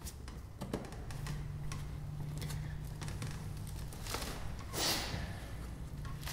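Fuel pump lock ring being turned by hand onto the fuel tank: scattered light clicks and scrapes, with a louder scraping rush about four to five seconds in, over a faint steady low hum.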